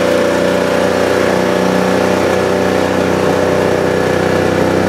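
Kawasaki Mule utility vehicle's engine running steadily as it drives along, a constant drone heard from on board.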